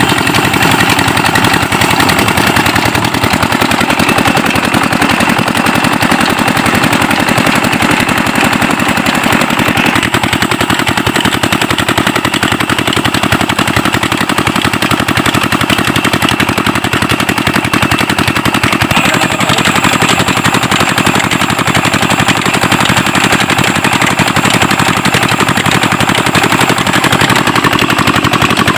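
Single-cylinder 'Peter' diesel engine running steadily with a rapid, even chugging beat, driving an ara wood-cutting saw machine.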